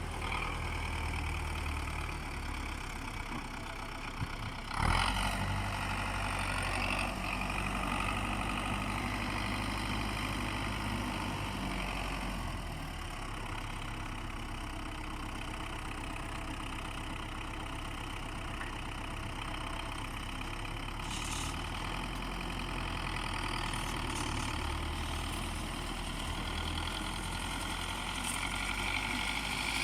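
Engine running steadily at low speed, with a short louder noise about five seconds in.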